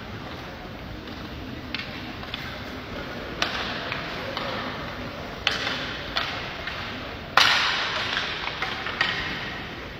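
Sharp knocks of hockey play on the rink, about five spread irregularly, each ringing out in the arena's echo, the loudest about seven seconds in.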